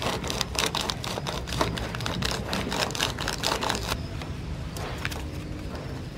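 Match heads being crushed to powder under a sheet of paper, ground with a small glass vial against a steel tabletop: a fast run of crunching and scraping that stops about four seconds in. Paper handling and a few light clicks follow.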